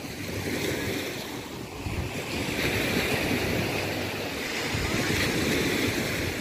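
Small waves washing up on a sandy shore, swelling twice, with wind buffeting the microphone.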